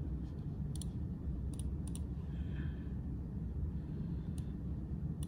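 A few sharp computer mouse clicks, some in quick pairs, over a steady low background hum.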